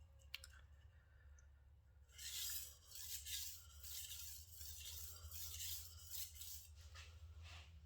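Gyuto kitchen knife stroked back and forth on a whetstone: a run of about eight short, faint scraping strokes, roughly one and a half a second, beginning about two seconds in, over a low steady hum.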